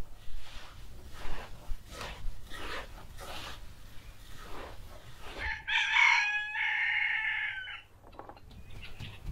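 A rooster crows once, a call of about two seconds starting a little past halfway through. Before it, gloved hands squeeze and crunch wet coarse salt in an enamel bowl, about two crunches a second.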